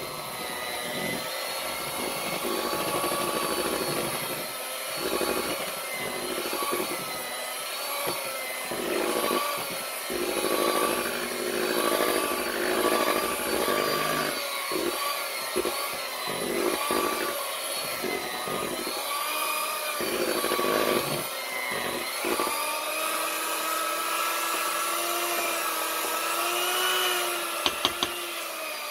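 Electric hand mixer running with its beaters in thick pound cake batter in a stainless steel bowl; the motor's whine wavers in pitch and loudness. A few sharp clicks near the end.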